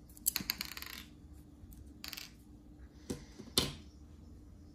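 Small metal knife screws clicking as they are dropped and knocked onto a table: a quick run of clicks in the first second, a brief rustle about two seconds in, then two sharp clicks past the three-second mark.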